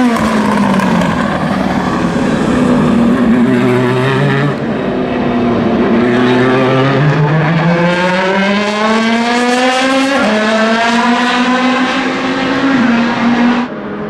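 Vanwall Vandervell hypercar's Gibson V8 racing engine at full volume, dropping in pitch as the car slows, then climbing steadily in pitch under acceleration with a shift about ten seconds in; the sound cuts off abruptly near the end.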